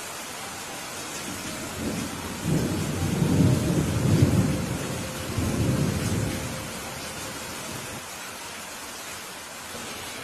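Steady rain falling, with a rumble of thunder that rises about two seconds in, rolls for several seconds and fades away by about six and a half seconds.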